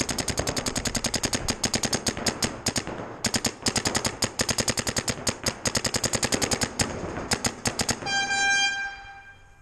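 Electronic paintball markers firing rapid strings of shots, about ten a second, with two short pauses. About eight seconds in the shooting stops and a steady electronic buzzer tone sounds for about a second.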